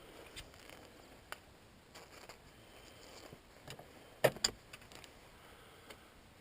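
Gloved hands fumbling with a camera: scattered faint clicks and rubbing, with a sharp double knock a little over four seconds in.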